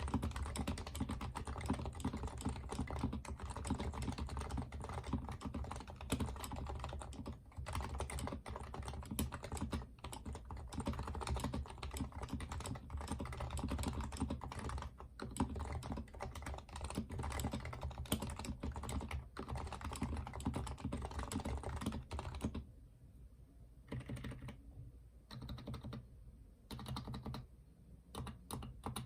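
Typing on an HHKB Professional Hybrid Type-S keyboard with silenced Topre electrostatic-capacitive switches: a dense, fast stream of keystrokes that thins out about three-quarters of the way through into slower, separate key presses with short gaps.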